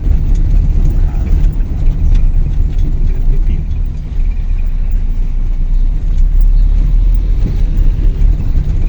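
A car driving on a road: a steady low rumble of engine and road noise.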